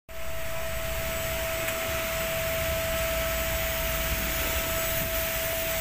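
A machine running steadily, with a constant high whine over a hiss and a low rumble.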